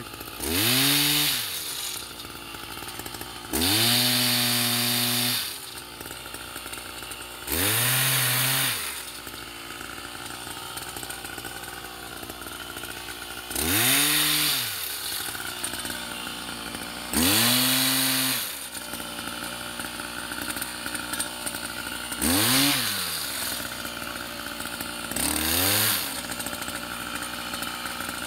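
The small engine of a pole-mounted olive branch shaker idling, revved up about seven times in bursts of one to two seconds, each rising in pitch and dropping back to idle. Each burst is the machine vibrating a branch to shake the olives down.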